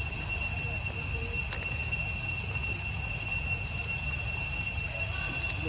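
Insects droning in one steady high pitch, unbroken, over a low rumble.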